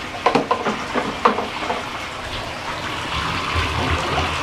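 Bathtub faucet running into the tub, a steady rushing hiss that builds up from about two seconds in. A few sharp knocks come in the first second or so.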